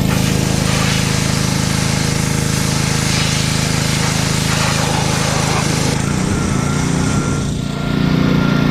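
Small petrol engine running steadily over a hiss of water spray. About seven and a half seconds in the level dips briefly, and the engine note then settles a little higher.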